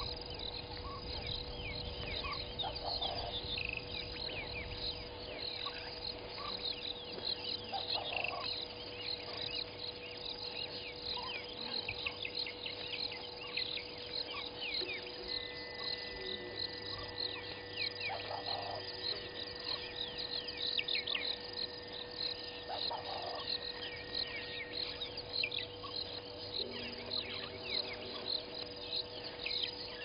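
Dense chorus of insects and birds chirping in the bush, many short high chirps overlapping, with a steady hum underneath and a lower call now and then.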